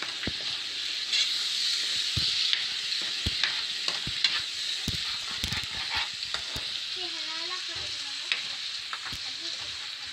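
Tomato, cashew and watermelon-seed masala sizzling in oil in a nonstick frying pan while it is stirred, the spatula scraping and knocking against the pan at irregular moments over a steady sizzle.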